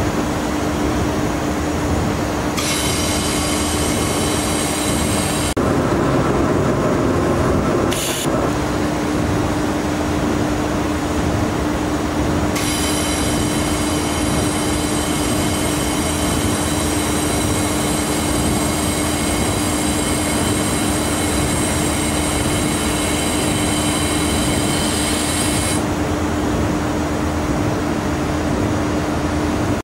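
A 1 kW automatic fiber laser welding machine at work welding 2 mm aluminium: a steady machine hum, with a high, many-toned whine that comes in for about three seconds near the start and again for about thirteen seconds from around twelve seconds in. A few seconds of rushing noise break in about six seconds in.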